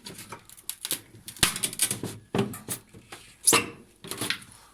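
Irregular plastic clicks, rattles and scrapes as the freezer compartment's interior plastic cover parts of a refrigerator are handled and pulled loose, with a few sharper knocks.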